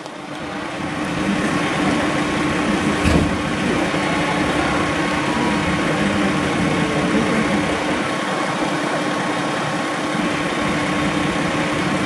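Hino coach's diesel engine running steadily behind its rear panel, a dense drone with a steady hum through it. It grows louder over the first second or two, and there is one short knock about three seconds in.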